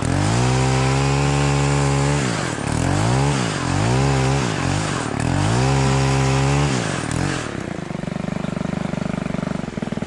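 Gas-powered pole saw on an extended shaft, cutting tree branches overhead. Its small two-stroke engine revs to full throttle and holds, is blipped up and down three times, holds full throttle again, then drops back to idle about seven seconds in.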